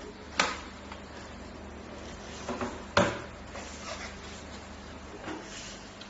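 Two sharp knocks about two and a half seconds apart, with a few lighter clicks, over a faint low hum that stops about five seconds in.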